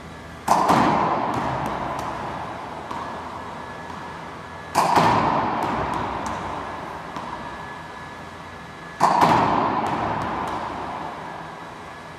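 Racquetball practice machine shooting balls: three loud bangs about four seconds apart, each ringing on in the court's echo for a few seconds, with lighter taps of the ball bouncing after each.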